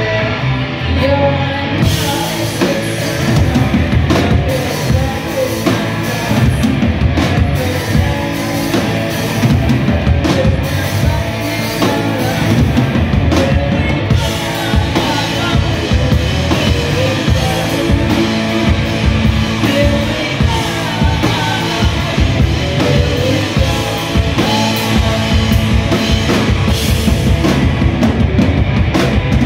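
Live rock band playing loud: distorted electric guitars and a drum kit, the drums coming in about two seconds in.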